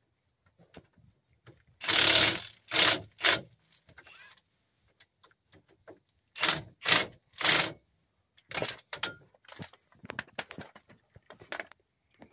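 Cordless impact wrench run in short bursts, driving home the front brake caliper bracket bolts: three bursts about two seconds in and three more about six and a half seconds in. Lighter clinks and knocks of tools being handled follow.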